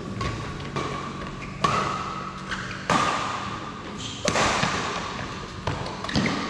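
Badminton racket strings striking a shuttlecock in a fast rally, about four sharp hits spaced a second or so apart, each ringing briefly in the hall.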